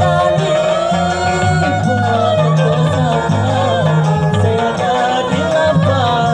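Live orkes gambus music: a gambus lute and electric guitars over a steady bass line, with a voice singing a wavering, ornamented melody.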